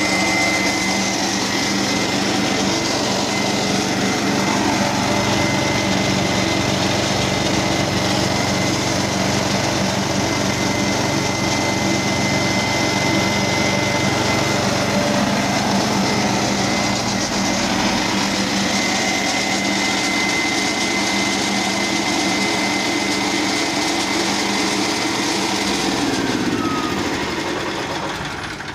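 Wema WM270 single-cylinder petrol engine on a Firman FFC400 concrete cutter running steadily at speed, with a thin steady whine over it. It winds down near the end.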